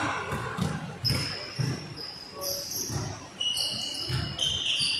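A basketball being dribbled on a gym floor, irregular thumps about every half second, with sneakers squeaking sharply on the court several times as players run.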